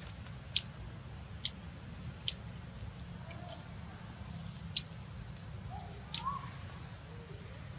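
Five short, sharp, high-pitched chirps a second or two apart over a steady low hum, with a faint short rising squeak just after six seconds in.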